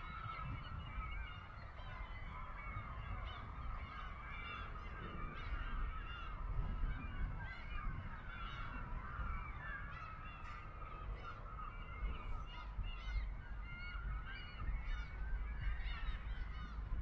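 A flock of birds calling continuously, many short honking calls overlapping, over a low rumble.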